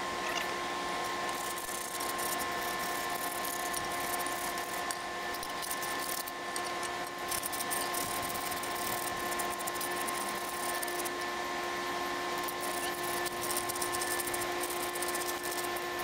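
Steady machine whine made of several fixed, even pitches, over faint scraping and clicking as rusty washing-machine motor parts are handled.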